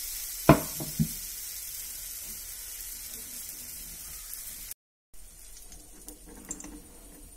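Ghee sizzling under a banana coconut ball frying in a small non-stick pan, the hiss slowly fading. There are two sharp knocks about half a second apart near the start. After a brief break, there are lighter clinks of a metal spoon in the pan near the end.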